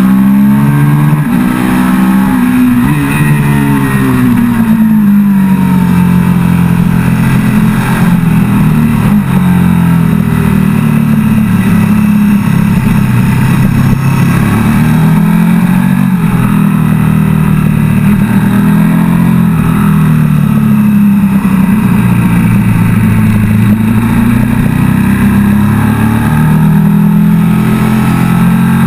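KTM 1290 Super Duke GT's V-twin engine ridden hard, heard from on board the bike: the revs climb and drop back repeatedly as it accelerates and slows.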